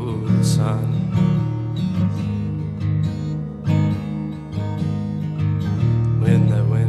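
Music: a song track led by a strummed acoustic guitar.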